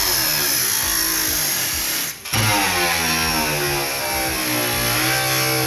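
Guitar background music over an electric angle grinder cutting through a car's hood panel, its whine rising and falling as the disc loads in the metal. The sound cuts out briefly a little after two seconds in.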